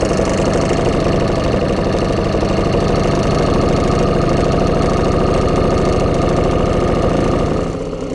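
Small boat outboard motor running steadily at low trolling speed, a fast even engine beat; the sound dips slightly near the end.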